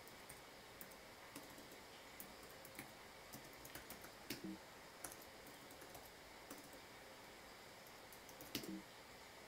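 Faint, unhurried typing on a computer keyboard: single keystrokes every second or so, with a couple of louder taps about halfway through and again near the end.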